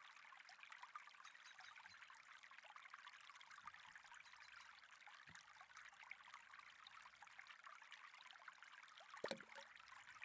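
Faint trickling, flowing water, steady throughout, with a single soft knock about nine seconds in.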